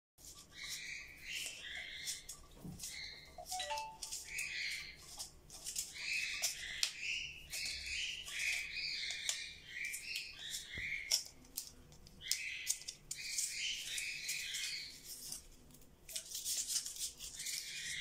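Small birds chirping in quick, irregular runs. Light clicks come from thread seal tape being wound onto a plastic fitting by hand.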